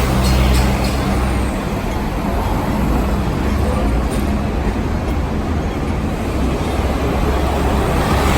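A large motor vehicle's engine running, a steady low hum under road noise, with the hum clearest in the first couple of seconds.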